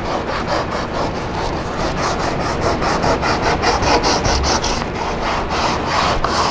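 Sandpaper worked by hand in rapid back-and-forth strokes, several a second, over the fiberglass leading edge of a dinghy centerboard, rounding and smoothing the newly glassed edge.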